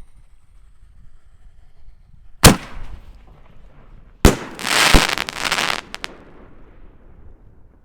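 A 6-inch double-break canister shell firework: a sharp bang about two and a half seconds in, then a second bang about two seconds later followed by a crackling hiss lasting about a second and a half, with one more sharp crack in it.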